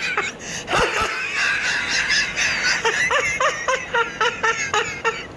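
A high-pitched snickering giggle: a quick run of short laughing pulses, about four a second, starting about three seconds in.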